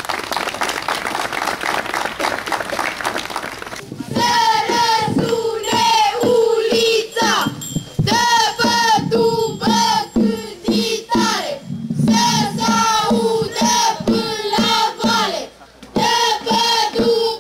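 Crowd applauding for about four seconds, then a group of girls and young women singing together in high voices, in short repeated phrases with a brief pause near the end.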